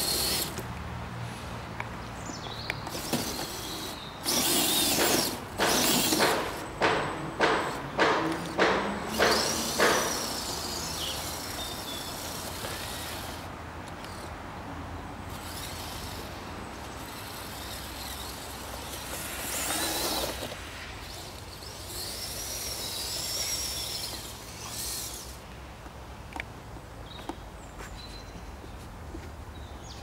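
Electric motor and gearbox of a radio-controlled 6x6 truck whining in a series of short throttle bursts, about a second and a half apart, with the pitch rising toward the end of the series. Another single burst comes later.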